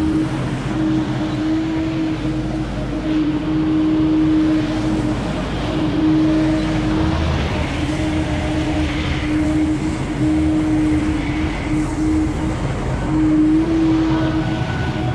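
Ferris FB2000 stand-on debris blower running at working speed: a steady engine tone under the rush of the blower's air, with more of the high rush about a third of the way through as the machine comes near.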